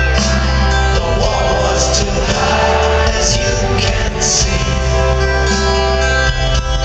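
Live rock concert music in a large arena, with guitar and a singing voice over held notes, recorded from the audience seats.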